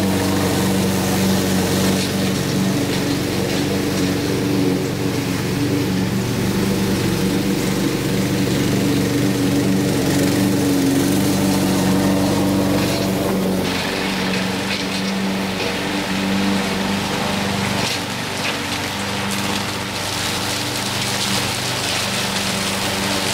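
Troy-Bilt TB360 21-inch walk-behind lawn mower running steadily while cutting grass, a continuous engine drone. The sound changes about halfway through, heard from farther off as the mower moves away along the fence.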